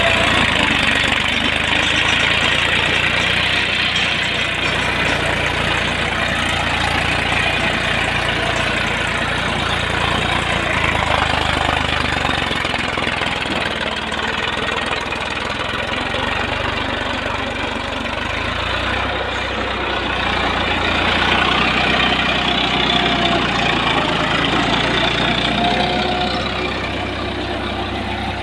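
Massey Ferguson 241 DI tractor's three-cylinder diesel engine running steadily under load as it pulls a rear-mounted plough through the soil.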